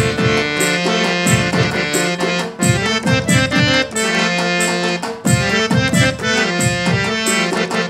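Instrumental interlude of Nagpuri folk song: harmonium and electronic keyboard playing a melody over a steady drum beat with high ticking accents.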